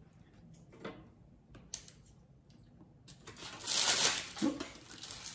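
Metal spatula scraping under baked meringue biscuits on a baking tray and setting them down on a wire cooling rack. A few light clicks come first, then a longer scrape about three seconds in.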